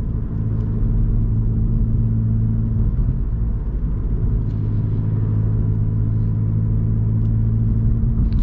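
Steady in-cabin drone of a Vauxhall Corsa's engine and tyres on the road while driving. A low hum runs underneath and breaks briefly about three seconds in.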